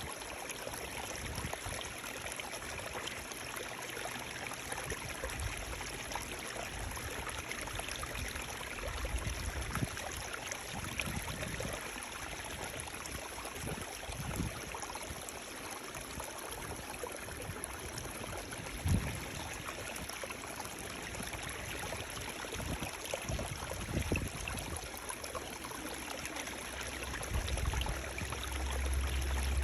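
Running water flowing steadily, with occasional brief low thumps, the loudest about two-thirds of the way through.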